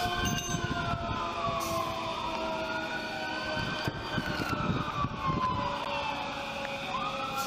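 Emergency vehicle sirens wailing, the pitch slowly rising and falling every few seconds, with a second, lower siren tone sliding slowly down beneath it.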